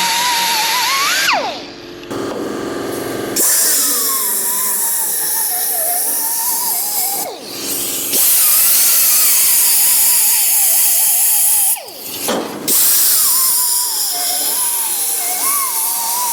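High-speed handheld grinder working metal in four bursts of a few seconds each. Its whine wavers around one pitch as it bites, and each burst ends with the whine sliding down as the tool is let off and spins down.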